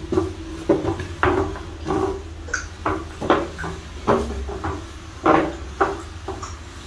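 A small plastic chair being pushed across a tiled floor, its legs scraping and knocking against the tiles in a string of irregular clacks.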